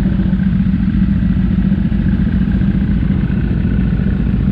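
2013 Yamaha R1's inline-four engine running steadily, with an even, unchanging tone.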